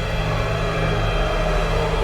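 Eerie horror-style background music over a steady low drone.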